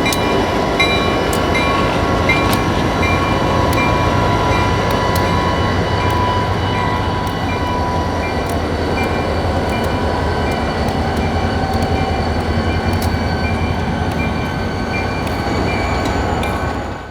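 Freight train rolling on the rails: a steady loud rumble with scattered clicks and a few faint, steady high tones.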